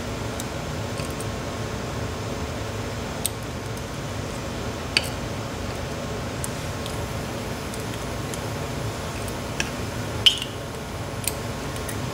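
A handful of small, sharp metallic clicks and taps, about five spread apart, as the spool top pins and springs are worked out of an old Corbin mortise cylinder's shell; the sharpest click comes near the end. A steady low hum runs underneath.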